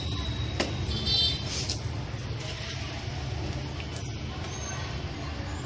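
A hand-held metal chain swung about, giving a few sharp clicks and a brief high metallic ring about a second in, over a steady low rumble.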